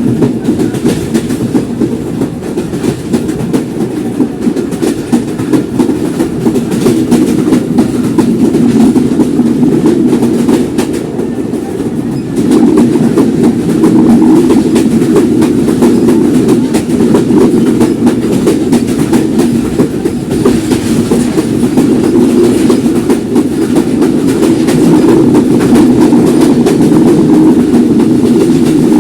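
Simanta Express train running at speed: a steady rumble of wheels on the rails with a continuous clickety-clack of rail joints, getting louder about twelve seconds in.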